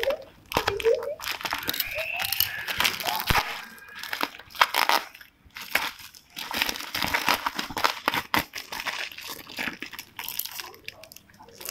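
Plastic packaging crinkling and tearing as a courier bag and its clear plastic wrap are cut open and pulled off a parcel by hand, a dense run of irregular crackles.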